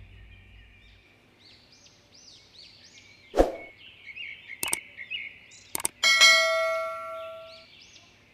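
Subscribe-button sound effects: a sudden thump, two sharp mouse-style clicks, then a bright notification bell chime that rings out for about a second and a half. Faint bird chirps run underneath.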